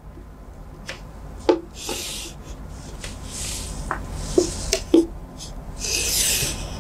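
Chalk drawn along a wooden set square on a chalkboard: about four short scraping strokes, with sharp taps and knocks as the chalk and the wooden ruler meet the board.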